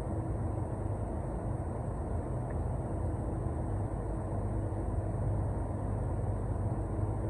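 Paint booth ventilation running: a steady low rumble with a faint constant hum.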